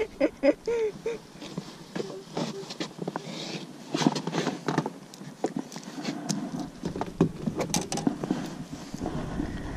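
Irregular knocks, taps and rustles as gear and the catch are handled and people shift about in an inflatable boat, with a few short squeaks near the start.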